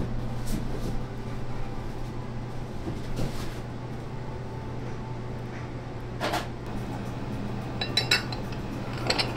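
Dishes and cutlery clinking and knocking now and then, with a small cluster of clinks near the end, over a steady low hum.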